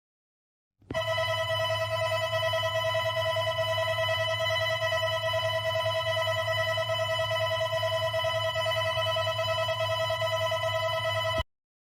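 Emergency-alert alarm tone: a steady electronic tone with a rapid flutter, over a low hum. It starts about a second in and cuts off abruptly near the end.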